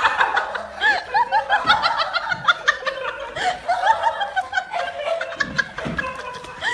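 High-pitched laughter: a rapid string of short 'ha' sounds, each rising and falling in pitch, going on with brief pauses.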